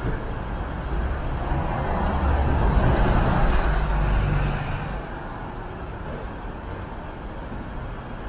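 Urban traffic noise heard from a tram halted at a stop: a low vehicle rumble swells for a few seconds and then eases off about five seconds in.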